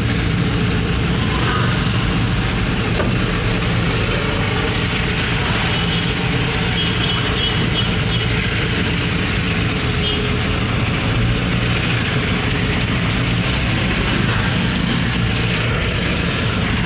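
Turbocharged truck engine running steadily while driving, with road noise, heard from inside the cab.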